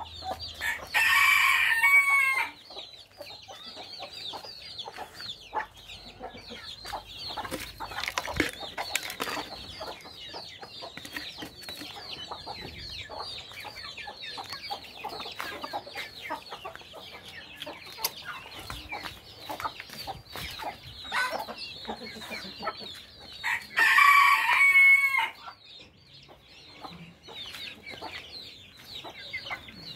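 Backyard chickens clucking and chirping steadily, with a rooster crowing twice, about a second in and again near the end; each crow lasts about a second and a half and is the loudest sound.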